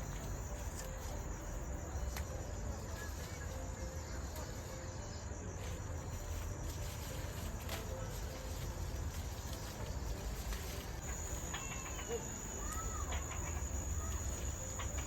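Insects trilling in a steady, continuous high tone, growing stronger about two-thirds of the way through, over a low rumble; a brief faint bird chirp near the end.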